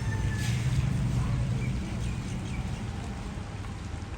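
The end of a rooster's crow, fading out about half a second in, then a few faint bird chirps over a steady low rumble.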